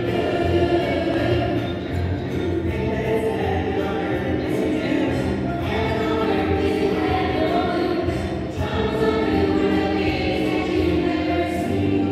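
A musical-theatre song with a chorus of voices singing over instrumental accompaniment, playing steadily.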